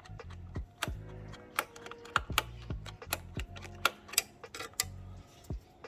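Irregular sharp clicks and taps of small hard parts being handled inside a PC case while an M.2 SSD and its metal heat-sink cover are worked loose, over a quiet music bed.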